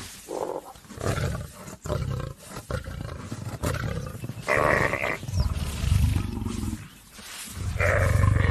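Lioness growling and grunting as she wrestles a kudu to the ground: a run of short, irregular growls, loudest about halfway through and again near the end.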